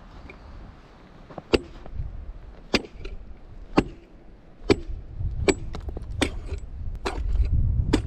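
Steel ice chisel striking lake ice as a fishing hole is chopped: about eight sharp chops, roughly one a second and coming slightly faster towards the end.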